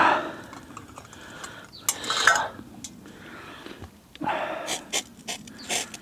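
Metal camping pot and cup clinking and clattering as just-boiled water is handled, with loud knocks at the start and about two seconds in.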